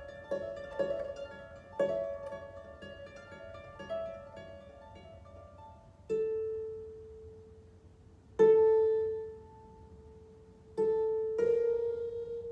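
Solo harp playing: a flowing stream of plucked notes for about six seconds, then slowing to four single notes, each left to ring and fade.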